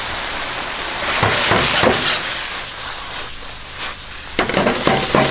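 Vegetables sizzling in a hot wok over a gas burner, with a few clattering knocks as the wok is tossed and the food lands back in it.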